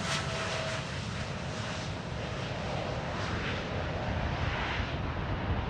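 Boeing 747-8 freighter's four GEnx turbofans at takeoff power during the takeoff roll and lift-off, a steady jet noise with a deep rumble underneath. Its upper hiss thins out toward the end as the jet passes and climbs away.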